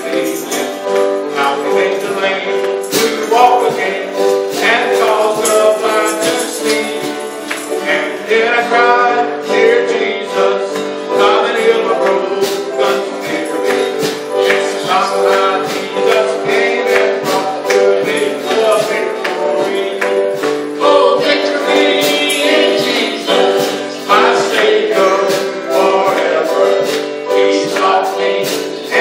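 Women singing a gospel hymn over music accompaniment, with a steady beat of sharp percussion hits.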